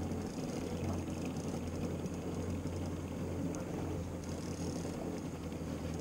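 Boat engine idling, a steady low hum, under a constant wash of wind and water noise.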